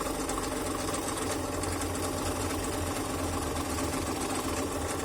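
Electric scroll saw running steadily, its blade stroking up and down with an even mechanical hum.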